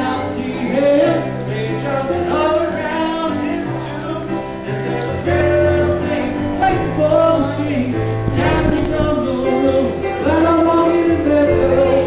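Electronic keyboard played live, with held bass notes under chords and a wavering melody line over them.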